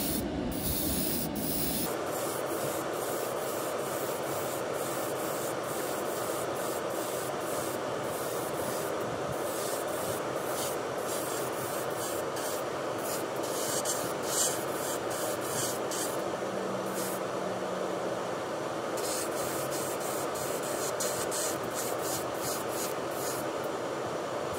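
Airbrush spraying paint onto a small toy part: a steady airy hiss, with short bursts of sharper hiss as the trigger is worked.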